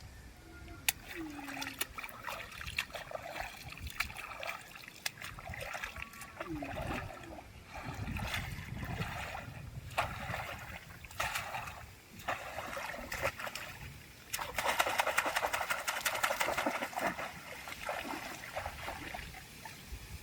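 Water splashing and trickling in repeated bursts about a second apart, with a few sharp clicks and a louder stretch of splashing about fifteen seconds in.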